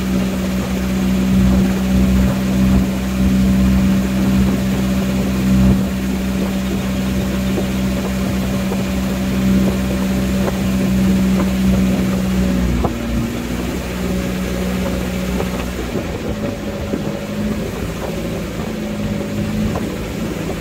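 Engine of a motorized wooden river boat running steadily under way, with water hissing along the hull. Its note changes about two-thirds of the way through and runs a little quieter after.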